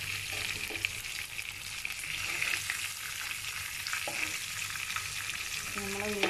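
Marinated whole fish shallow-frying in oil with curry leaves in a non-stick pan over a low flame, a steady sizzle, with a couple of light clicks from a spoon against the pan.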